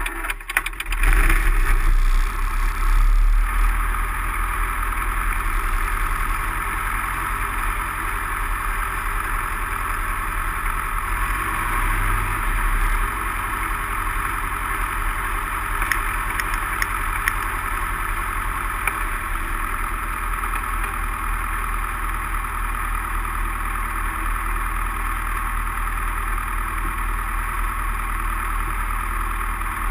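Light aircraft's piston engine running, heard inside the cockpit, louder for a couple of seconds about a second in and then running steadily.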